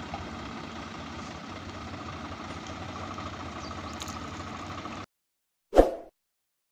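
Swaraj 744FE tractor diesel engines running steadily at a constant pitch, cutting off suddenly about five seconds in. A single short, loud click sound effect comes with the subscribe-button animation near the end.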